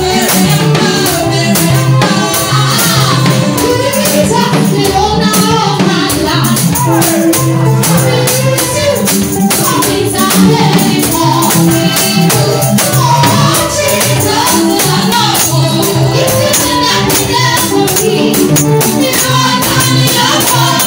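Lively gospel music: singing over a steady bass line, with busy jingling tambourine-like percussion.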